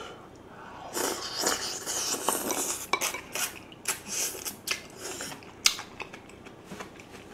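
Close-miked eating: a mouthful of spicy braised monkfish and bean sprouts being chewed and sucked in, with a run of sharp clicks from about three seconds on, the loudest near the six-second mark.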